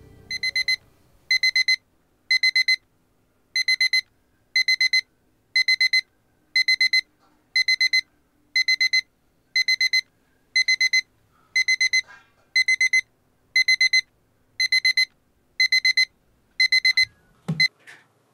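Digital alarm clock beeping: a quick run of high electronic beeps about once a second, over and over. It stops near the end with a thump as a hand presses down on the clock to switch it off.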